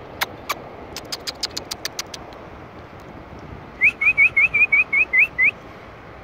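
A quick run of nine short, rising, whistle-like chirps about four seconds in, loud and close, preceded by a string of sharp clicks in the first two seconds.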